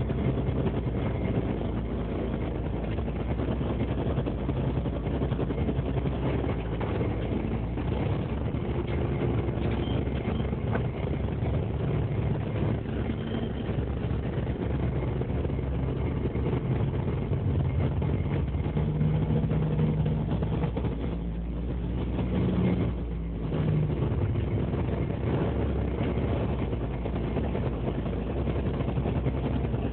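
Fishing boat's engine and deck machinery running steadily as a longline is hauled aboard, a low mechanical drone. A higher hum stands out for a few seconds past the middle, then briefly drops away.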